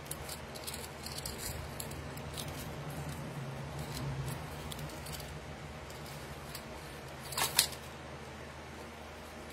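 Small clicks and jingles of a metal chain necklace being handled, with one louder clack about seven and a half seconds in, over a low steady hum.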